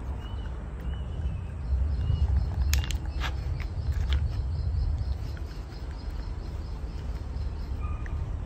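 Outdoor rural ambience: a low rumble, a faint steady insect drone, and a few short high chirps near the start and again near the end. A few light clicks or taps come about three to four seconds in.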